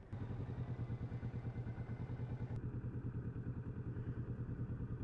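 Motorcycle engine running steadily with an even, low pulsing throb that comes in abruptly just after the start.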